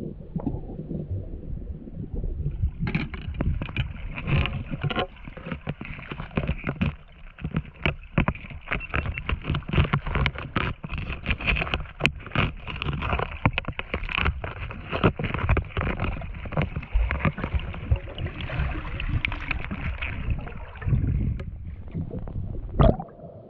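Underwater sound picked up by a GoPro in its housing during a dive: a muffled low rumble of moving water. From about three seconds in, dense crackling and clicking joins it.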